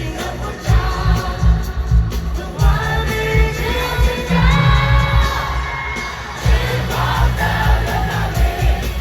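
Live Mandopop dance music with a pounding bass beat and a woman singing over it; the bass drops out briefly about six seconds in, then comes back.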